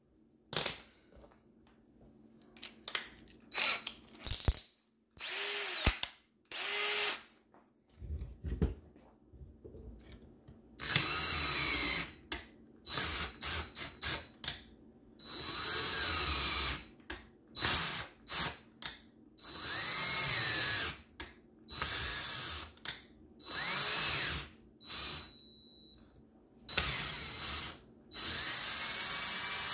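Cordless drill driving a Helicoil thread tap into a bolt hole in an aluminium small-engine cylinder, run in many short start-stop bursts of a second or two as the tap is worked in and backed out to cut new threads.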